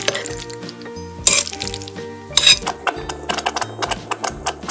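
Background music with a steady bass line and light percussion. A small toy cooking pot clinks sharply twice, about a second in and again at about two and a half seconds, as it is handled and stirred.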